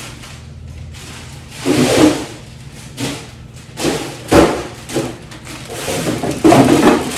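Handling noise of newly bought storage containers being taken out and set down: rustling and a run of knocks, with one loud thump about four and a half seconds in.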